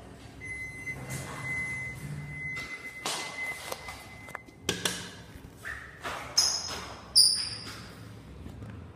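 A steady electronic beep lasting about three seconds, then a few knocks and several short, higher electronic chimes, the loudest two close together.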